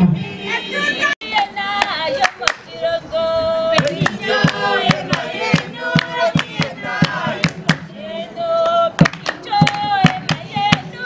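A group of men and women singing a traditional Oshiwambo song together, with hand-clapping and beats on a small hand drum keeping a steady rhythm.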